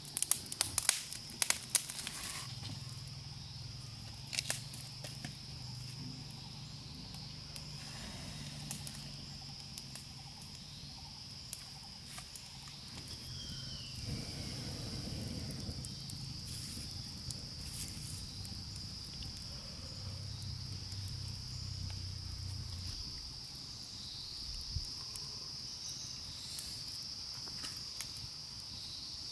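Insects droning steadily at one high pitch, with a few sharp clicks in the first two seconds.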